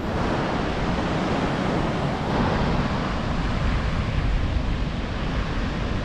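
Surf breaking on a beach, a steady rushing noise, with wind buffeting the microphone.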